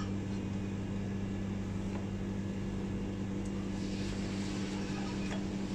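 Steady low machine hum of kitchen equipment, with a few faint knife clicks on a cutting board as tuna is sliced.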